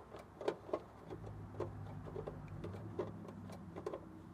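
Faint, irregular small clicks and ticks of a screwdriver turning the ground terminal screw in an outdoor AC unit's control panel, the screw turning without snugging up on the stranded ground wire. A low steady hum joins from about a second in and fades out near the end.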